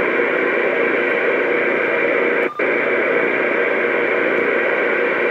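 Steady hiss of static from a Uniden Bearcat 880 CB radio's speaker while it receives a channel with no voice on it. About two and a half seconds in there is a brief click and dropout.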